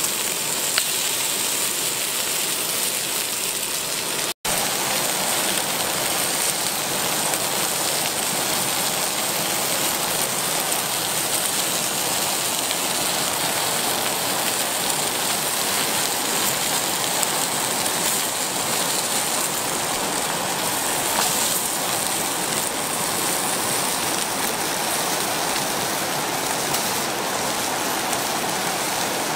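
Steady rushing of a fast, muddy river, an even noise with a brief dropout about four seconds in.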